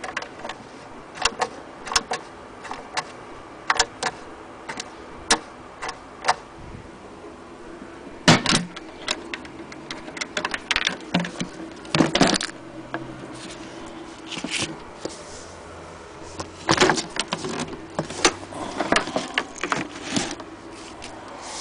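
A wooden sewing-cabinet drawer and a small metal piece on a string being handled: irregular clicks, knocks and rattles, with louder bouts of clatter about a third of the way in, around the middle and near the end.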